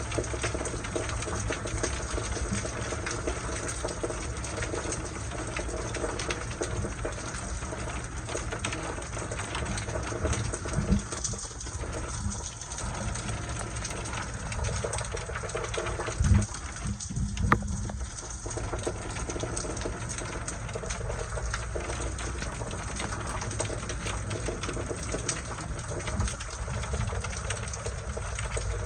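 Steady rain falling. A few dull low thumps come about ten seconds in and again around sixteen to eighteen seconds.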